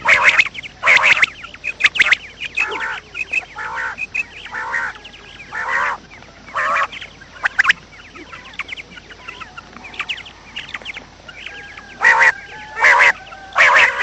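A series of loud, harsh bird calls, each lasting under half a second and repeated at irregular intervals, with a lot of short, high chirping notes in between.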